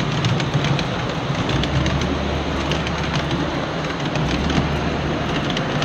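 Riding cars of a 7¼-inch-gauge miniature railway rolling past, their steel wheels rumbling on the rails with a run of small irregular clicks.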